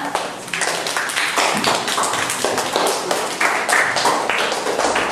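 A rapid, uneven run of sharp taps or claps, several a second and continuing without a break.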